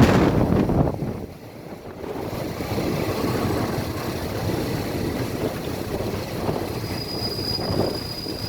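A train running along the track with a steady rumble, and a thin high squeal coming in near the end. A louder rush of noise in the first second drops away.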